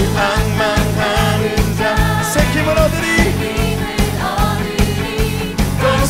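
Live worship band playing a praise song with singing; an Alleva Coppolo LG5 five-string electric bass plays a steady line of repeated low notes under the drums and vocals.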